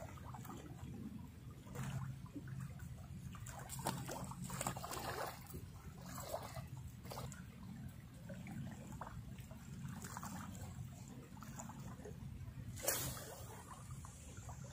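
Shallow seawater lapping and trickling around a wading angler's legs, with small splashes scattered throughout and a steady low rumble underneath. One sudden sharp sound stands out near the end.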